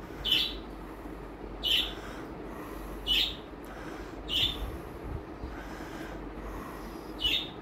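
A short high chirp repeating five times, about every one and a half seconds with a longer pause before the last, over a low steady hum.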